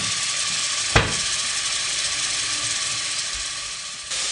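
Chopped onions frying in hot olive oil in a stainless steel pot: a steady sizzling hiss as they begin to cook and release their water, with a single sharp knock about a second in.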